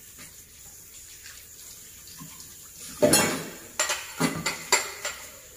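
Dishes and kitchenware being handled at a sink: a loud clatter about three seconds in, then several sharp knocks of crockery and utensils.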